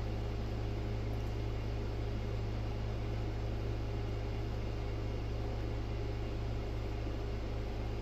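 Steady low hum with a faint, even hiss over it.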